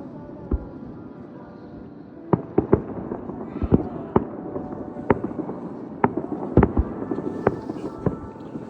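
Aerial firework shells bursting: one sharp bang about half a second in, then from about two seconds in a rapid, irregular string of sharp bangs over a steady rumble.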